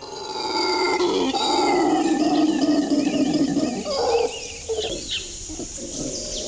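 Howler monkey howling: one long, deep call for about the first three seconds, then shorter, broken calls.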